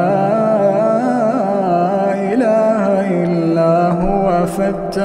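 A man reciting the Quran in a slow, melodic chant (tajweed), drawing out long ornamented vowels that turn up and down in pitch, with a brief break near the end.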